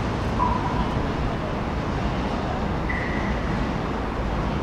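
Steady city traffic noise, an even low rumble, with a few faint short tones sounding briefly over it.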